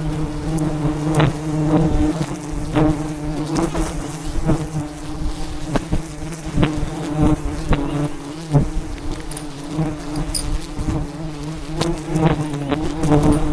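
Wild bees buzzing steadily in large numbers around a giant wild hive, with scattered sharp clicks and knocks over the buzz.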